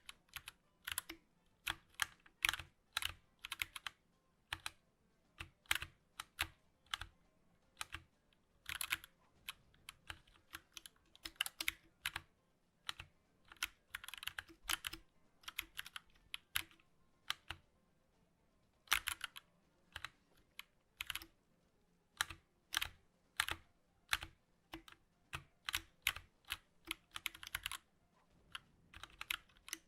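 Typing on a 60% mechanical gaming keyboard: irregular runs of clicky keystrokes, some fast and some spaced out, with a short pause about two-thirds of the way through.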